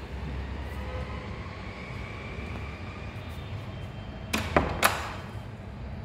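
A wooden door fitted with a fingerprint smart lever lock shutting, with two sharp clacks in quick succession about four and a half seconds in as it meets the frame and latches. A steady low hum underneath.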